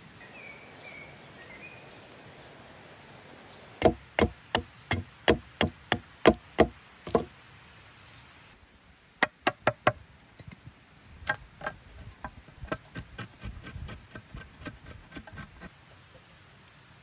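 Hand tools working green wood: a run of about nine sharp strikes on wood, two to three a second, then four quick knocks, then a longer run of lighter, quicker knocks and clicks.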